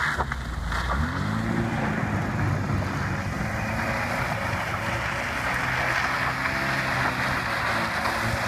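Car engine revving up and falling back several times as the car slides sideways on snow, over a steady hiss.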